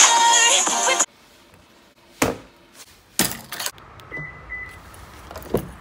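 Intro music cuts off about a second in. Then come a click and a longer rattle of keys as a Toyota Tacoma pickup's remote key fob is handled and pressed at the truck's door, followed by two short high beeps and another click near the end.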